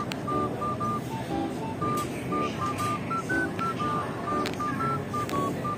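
Background music: a simple melody of short, beep-like notes stepping up and down in pitch over a quieter accompaniment.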